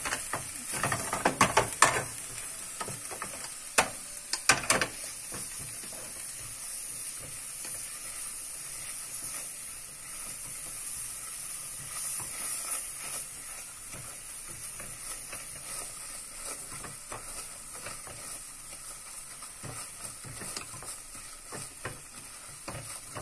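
Silicone spatula stirring and scraping butter and toasted flour around an aluminium pot over steady sizzling, as the butter cooks into a roux for béchamel. There are a few sharp knocks in the first five seconds, then steady scraping.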